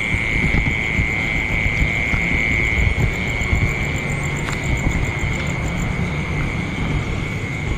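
Steady high drone of night insects, with a faint rapid pulsing chirp higher up, over a constant low rumble.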